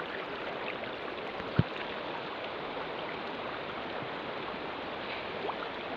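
Shallow river water flowing over gravel and stones, a steady rushing hiss. One short, low thump about a second and a half in.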